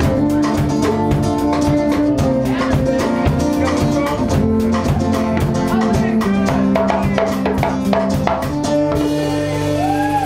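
Live band playing: a drum kit keeps a fast, even beat under strummed acoustic guitar and electric guitar. The drums stop about nine seconds in, leaving held chords ringing.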